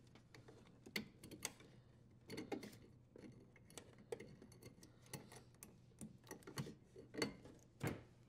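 Scattered light clicks and small rattles, irregular and spaced a fraction of a second to a second apart, as the dishwasher's power-cord strain relief and wires are worked loose and pulled out of the sheet-metal junction box.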